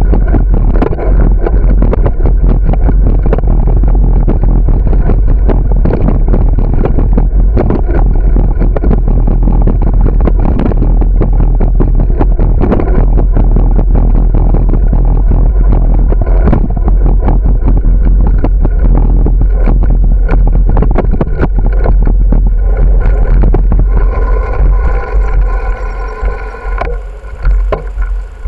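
Loud, steady wind rumble on the microphone of a camera on a moving bicycle, with frequent knocks and rattles as the bike rides over the pavement. Near the end the bike slows at an intersection: the wind drops away and the hum of car engines in traffic comes through.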